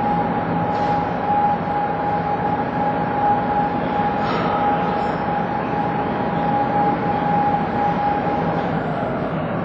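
Small diesel shunting locomotive running as it rolls slowly through the depot shed, a steady engine hum with a continuous high whine over it.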